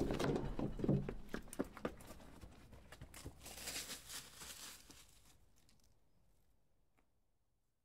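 Footsteps on a dirt and gravel forest trail: irregular soft steps with some rustling, fading out about five to six seconds in, then silence.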